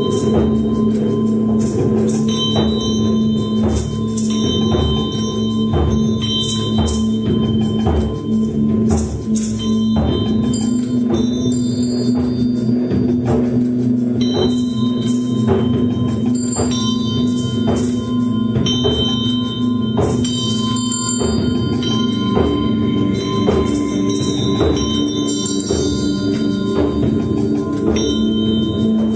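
Sound-concert music: sustained ringing tones held under frequent struck, bell-like and rattling percussion accents.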